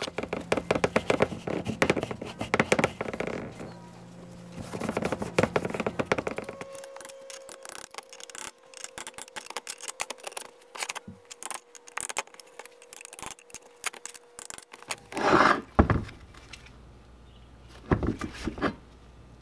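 Metal parts of a Dake arbor press being handled on a steel bench: clinks, small knocks and scrapes of cast-iron and steel pieces, busiest in the first six seconds and sparser after. Two louder scrapes come near the end.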